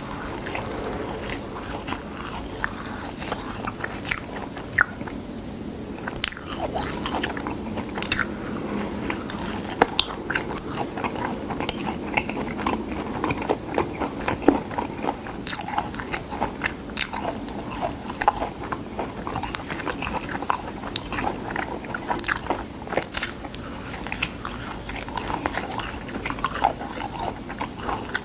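Crisp dried gamtae seaweed sheets being bitten and chewed close to the microphone, with many small irregular crackles and crunches.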